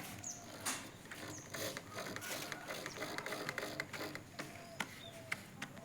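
Scattered light mechanical clicks and taps at irregular intervals, the small handling noises of tools or hardware.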